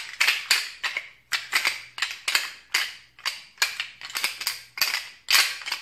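Flextone Battle Pack deer rattling bag worked between the hands, giving short clattering bursts about three or four times a second to imitate bucks sparring and fighting.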